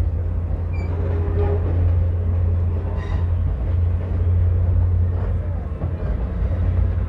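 Commuter train in motion, heard from inside the carriage: a steady low rumble, with passengers' voices faintly over it.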